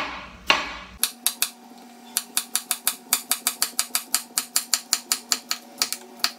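Kitchen knife slicing a peeled sweet potato on a wooden cutting board: two single cuts, then from about a second in a quick, even run of chops with the blade knocking the board, about five or six a second.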